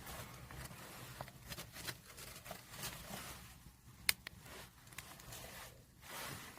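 Wood fire crackling in a camp wood stove: irregular small pops and clicks, with one sharp louder pop about four seconds in.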